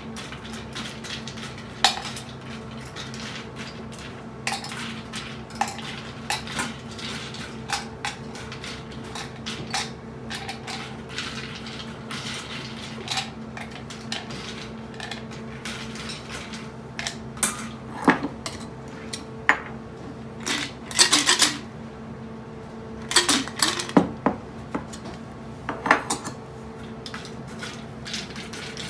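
Ice and bar tools clinking against a cocktail glass and a copper shaker tin: a run of separate clinks and knocks, busier and louder in the second half, over a steady low hum.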